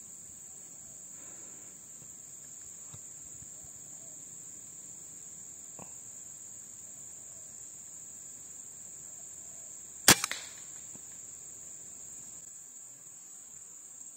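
A single air rifle shot about ten seconds in: one sharp crack followed by a couple of quieter knocks. Underneath it runs a steady high-pitched insect drone.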